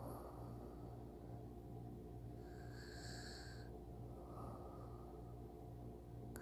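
Soft sleep breathing with light snoring from a person lying close to the microphone, one slow breath about three seconds in and a weaker one just after. A faint low hum runs underneath.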